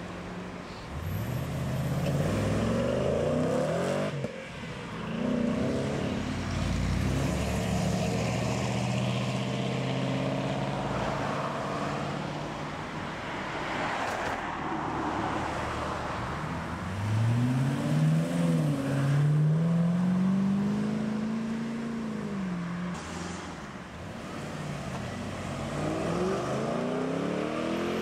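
Several cars, among them Ford Mustangs and a Chevrolet Camaro, pulling away one after another, each engine note rising as it accelerates past. The loudest climbs, dips briefly at a gear change, climbs again and then fades.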